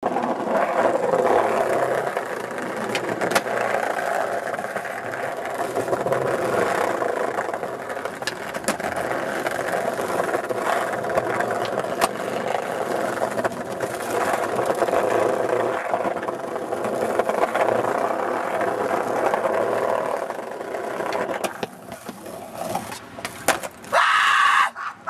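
Skateboard wheels rolling over paving with a steady rumble, broken now and then by sharp clacks of the tail popping and the board landing. Near the end a few louder knocks as the skater falls and the board clatters away.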